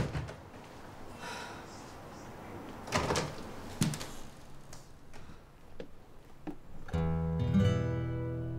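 A door shuts with one sharp bang, followed by a few faint knocks. About seven seconds in, acoustic guitar background music starts.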